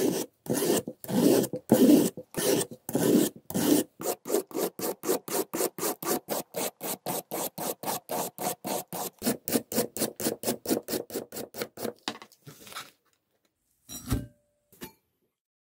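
A hand peeler shaving a raw carrot into thin strands with repeated rasping strokes, about two a second at first and then quickening to about four a second. About two seconds after the strokes stop, there is a short rustling thud as the shredded carrot is tipped into a glass bowl.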